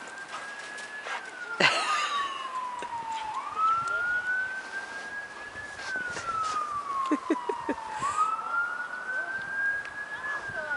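An emergency-vehicle siren on a slow wail, climbing and falling in pitch in long, even sweeps about every five seconds. A few sharp clicks and a brief noisy rush come through about two seconds in.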